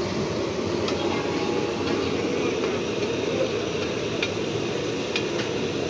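Busy street-food market ambience: a steady din of indistinct crowd chatter and traffic, with a few sharp clinks.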